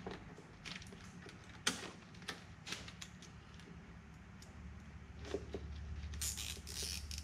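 Faint, scattered clicks and rattles of a plastic electronics module and its wiring being handled and fitted with a cable tie, ending in a quick rasp of a zip tie being pulled through its ratchet. A steady low hum comes in about halfway.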